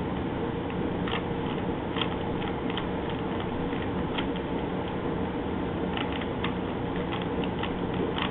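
Plastic layers of a Rubik's Cube being turned rapidly, giving irregular clusters of short clicks, over a steady background hum.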